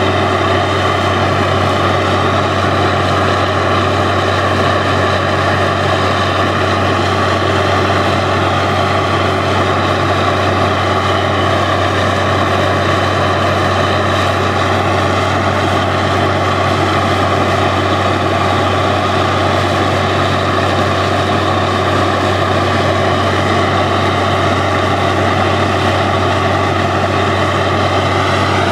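Truck-mounted borewell drilling rig running at full load: a steady, unbroken engine and air-compressor drone with a loud rushing hiss over it as compressed air blows water up out of the borehole.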